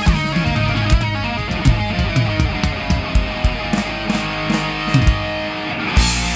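Live rock band playing an instrumental passage: an electric guitar lead line over a drum kit keeping a steady beat, with a loud crash near the end.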